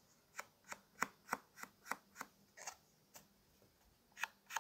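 Soft repeated taps of an ink dauber dabbed against the edge of a small piece of cardboard, about three a second, inking the edge. The tapping pauses briefly a little after three seconds and starts again near the end.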